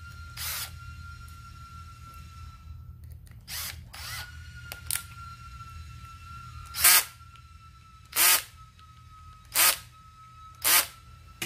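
A cordless driver spinning in short bursts as it runs small screws into the diaphragm cover of a Zenoah G3800 chainsaw carburetor. There are a few lighter bursts in the first half, then four louder ones about a second and a half apart.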